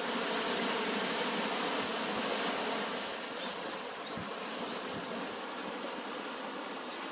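Ocean surf washing onto a beach: a steady hiss of breaking waves, a little fuller in the first few seconds and easing slightly after that.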